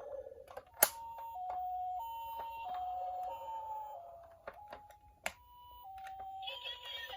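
Toy ambulance's electronic two-tone siren, stepping between a high and a low note about every half second. A sharp click comes just before it starts, and another comes about five seconds in.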